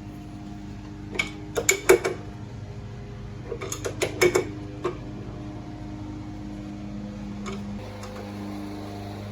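Hard metal clinks in two quick clusters of four or five strikes, about a second in and again about four seconds in, over a steady mechanical hum that shifts slightly in pitch near the end.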